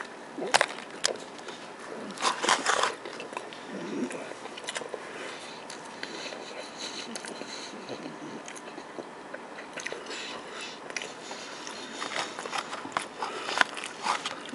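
A person biting into and chewing a chicken sandwich with bacon and onion straws. Crunchy bites come about half a second in and again around two to three seconds in, then quieter chewing, with more crunching bites near the end.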